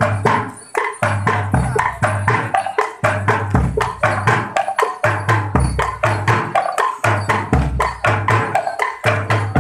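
Percussion-led procession music: quick, even knocks several times a second over deep drum beats, with ringing pitched notes.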